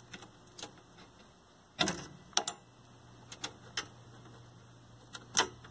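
Horizontal output and damper vacuum tubes being rocked and pulled out of their chassis sockets: a few scattered sharp clicks and knocks, the loudest about two seconds in and near the end.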